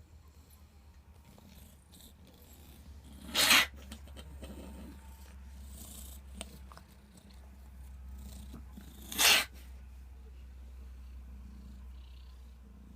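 A pet coughing: two short, sharp coughs about six seconds apart.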